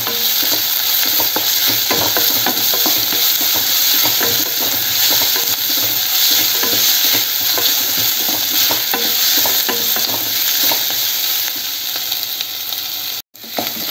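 Chopped onions frying and sizzling in oil in a kadai while a wooden spatula stirs and scrapes them against the pan, with many light scraping clicks over a steady sizzle. The sound cuts out for a split second near the end.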